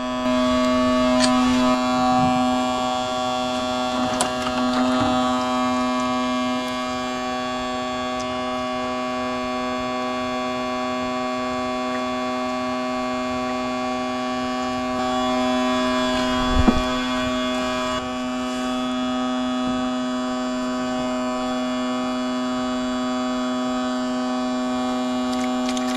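A steady hum with a stack of overtones, unchanging in pitch. A single short knock sounds about 17 seconds in.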